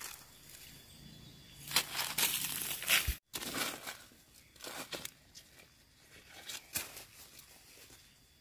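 Crinkling, rustling handling sounds, loudest for about a second and a half near two seconds in, then a sudden cut followed by scattered light knocks and rustles.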